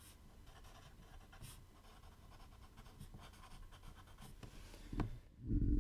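Faint scratching of writing on paper, in short irregular strokes. A low thump comes about five seconds in, followed by a louder, longer thump near the end.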